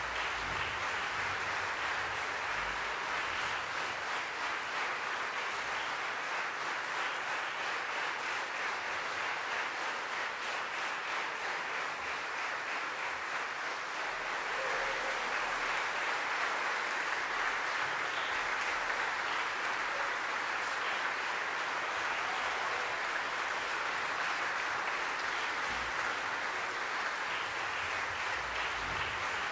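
Audience applauding steadily, a little louder from about halfway through.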